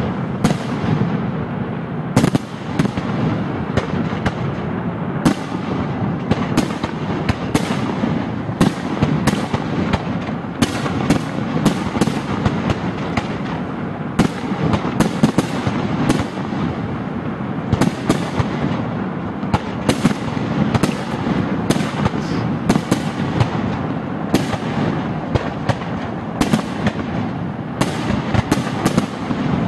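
Aerial fireworks display: a dense, continuous barrage of shell bursts, several sharp reports a second over a constant low din of overlapping explosions.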